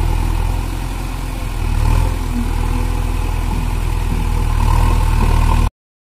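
JCB 3DX backhoe loader's diesel engine idling steadily, rising a little about two seconds in and again near the end, then cutting off suddenly.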